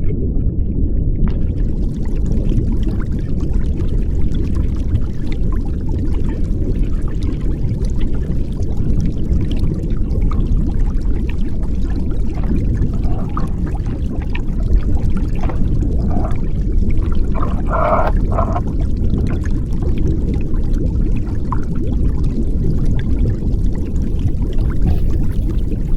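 Underwater sound picked up by a waterproof action camera: a steady, muffled low rush of water with scattered faint clicks and crackles, and a brief higher-pitched sound about two-thirds of the way through.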